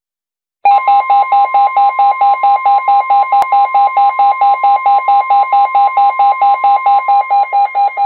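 Midland NOAA weather radio sounding a severe thunderstorm warning alert. Its loud, pulsing alarm beeps about four times a second over the steady 1050 Hz NOAA Weather Radio warning tone, starting under a second in. A single click comes partway through.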